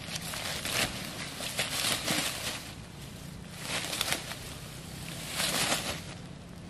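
Footsteps and rustling in dry leaf litter and grass, coming in several short crackling bursts about a second or so apart, over a faint steady low hum.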